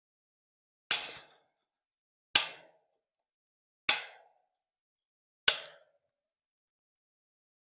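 Four slow hammer blows about a second and a half apart, each a sharp strike with a short ringing decay.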